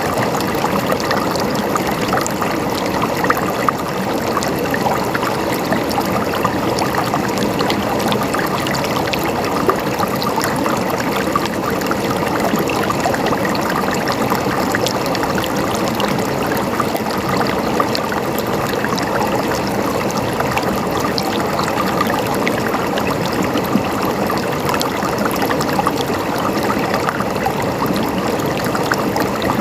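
Running water gurgling and trickling steadily, full of small splashes.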